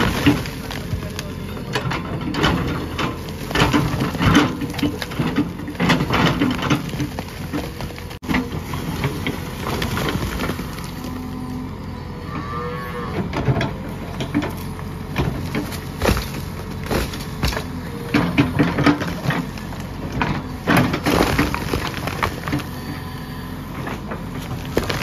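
A JCB 3DX Plus backhoe loader's diesel engine works steadily while its bucket pushes down an old brick wall, with repeated crashes and clatter of falling bricks and rubble.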